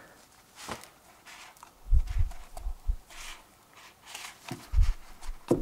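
A metal pick tool scraping and clicking against an oil filter housing's centre tube as an old rubber O-ring gasket is prised off, with gloved hands rubbing. Dull low thumps of handling come about two seconds in and again near the end.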